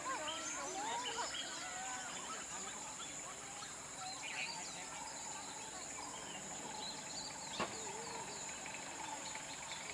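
Outdoor forest ambience: birds chirping and calling over a steady high-pitched hiss. A single sharp click about seven and a half seconds in.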